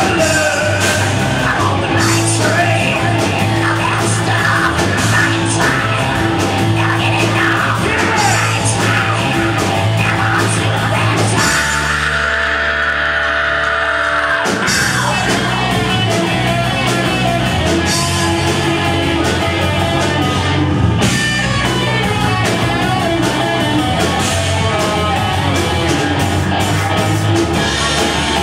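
Live hard rock band playing loud: distorted electric guitars, bass and drums, with a male singer shouting and singing the vocal. About twelve seconds in, the bass and drums drop out for a few seconds under a single held high note, then the full band comes back in.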